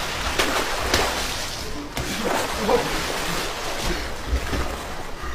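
Water splashing and sloshing.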